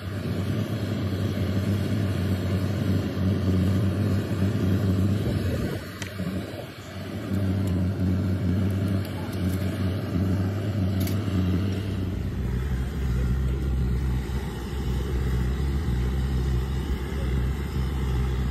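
A steady low motor hum that drops to a lower pitch about twelve seconds in.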